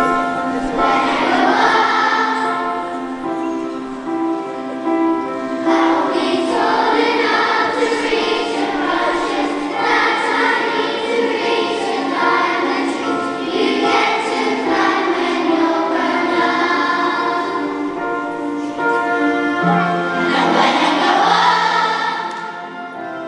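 A large children's choir singing with a full orchestra accompanying, in phrases that swell and fall back.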